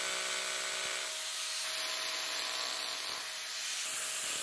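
Arbortech Power Chisel running with a V chisel as it is pushed into the wood to cut the corner of a letter: a steady buzzing hiss of the vibrating blade shaving the wood.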